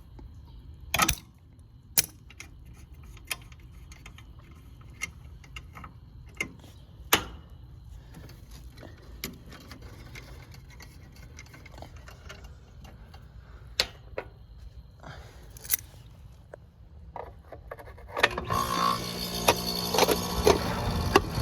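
Scattered clicks and knocks of hand work on a central air-conditioning condenser unit, then about eighteen seconds in the condenser starts up and keeps running with a steady hum, restarted after its coil was cleaned.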